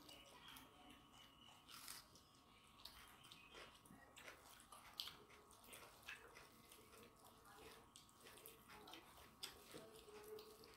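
Faint, wet clicks and smacks of eating by hand: fingers mixing rice and chicken curry on steel plates and chewing, over a faint steady hum.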